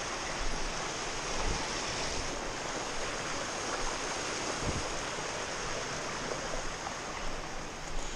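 Small cold-water brook rushing over rocks in small cascades, a steady even rush, with a few soft low thumps.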